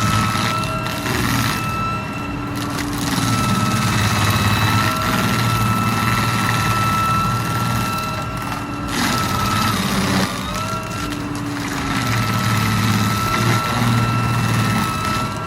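Heavy wood-processing machine running, its engine rumbling under a steady high-pitched whine that cuts out briefly a few times and resumes.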